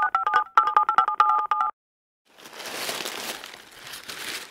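A rapid run of short two-tone electronic beeps, like phone keypad dialing, lasting under two seconds. After a short gap, crumpled packing paper rustles and crinkles as it is pulled out of a cardboard shipping box.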